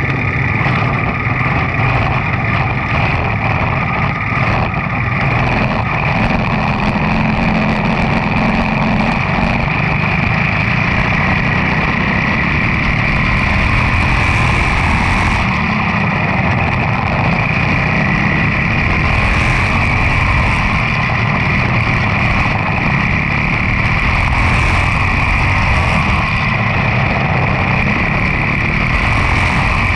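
Quarter midget race car's single-cylinder Briggs & Stratton Animal engine running steadily at racing speed, heard close from the car itself.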